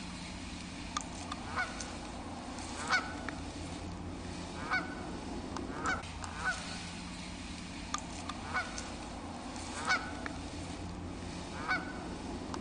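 Repeated honking bird calls, one every second or two, over a steady low hum.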